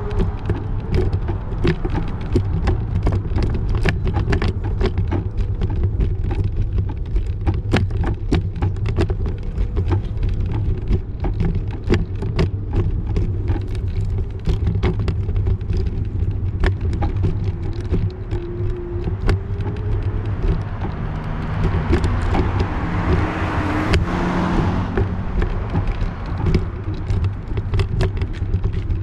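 Road noise from riding a bicycle along a city street: a steady low rumble with constant sharp rattling clicks, and a vehicle passing about three-quarters of the way through.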